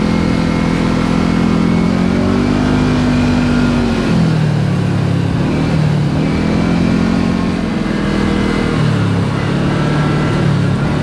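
Kawasaki KRX4 1000 side-by-side's parallel-twin engine running under way, its pitch dropping about four seconds in as the throttle eases, climbing again, then dipping and rising once more near the end, over steady tyre and wind noise.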